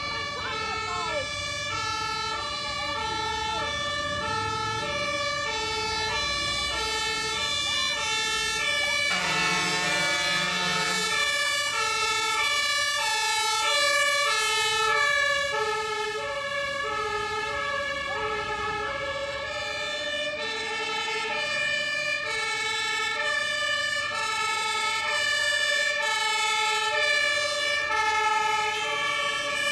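German two-tone fire engine sirens (Martinshorn) alternating steadily between a low and a high tone, with two sirens overlapping out of step as the trucks pass. About ten seconds in, a deeper horn sounds in two short blasts, under a low truck engine rumble.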